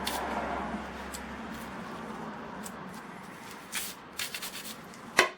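Hands handling a chainsaw's bar and chain: rubbing and scraping, a short run of light clicks and rattles partway through, and one sharp click near the end.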